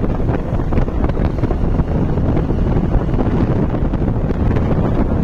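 Wind buffeting the microphone of a motorcycle cruising at a steady speed, with the bike's engine and tyre noise underneath. The sound is loud and constant.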